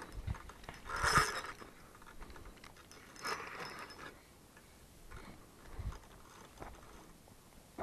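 Fishing reel being wound in two short spells, about a second in and again around three and a half seconds in, with small ticks and handling knocks between.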